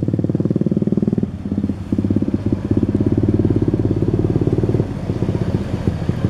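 An engine running steadily at an even speed, with close regular firing pulses, dipping briefly about a second and a half in.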